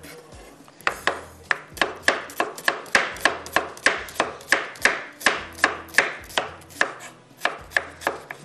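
Kitchen knife slicing a red onion thinly on a wooden chopping board, the blade knocking on the board in a steady rhythm of about three to four strokes a second. The strokes start about a second in and pause briefly near the end before resuming.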